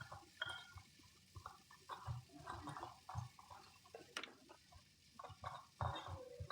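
Irregular knocks and scrapes of kitchen food preparation, several a second, some with a low thud.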